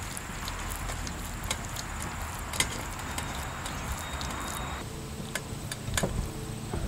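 Wet wheat-flour dough being squeezed and kneaded by hand in a mesh strainer in water, washing out the starch to leave the gluten: soft wet squelching with sharp clicks now and then. A steady hiss underneath cuts off suddenly about five seconds in.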